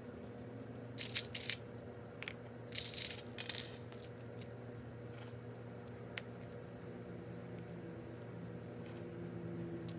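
Small seashells clicking and clinking against one another as they are handled and set into potting soil: a few short clusters of rattling clicks in the first four seconds, then scattered single ticks.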